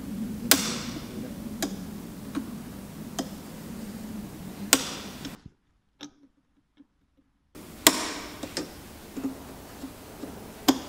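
Pliers clicking against the metal retaining clip and end cap of a motorcycle's stock silencer while the dB killer clip is being worked loose: scattered sharp metallic clicks a second or more apart, broken by about two seconds of silence in the middle.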